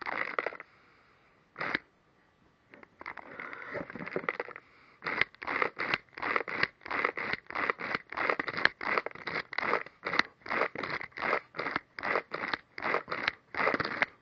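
Party blower blown over and over in short, raspy puffs: a few scattered ones at first, then from about five seconds in a steady run of about three a second.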